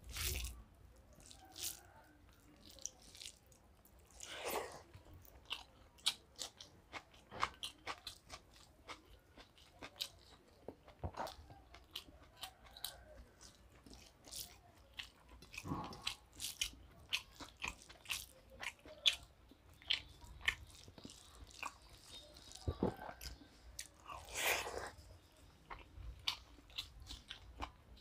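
Close-miked sounds of a man eating rice and curry by hand: chewing and lip smacks with many short clicks, and fingers mixing rice on a steel plate, with a few louder moments.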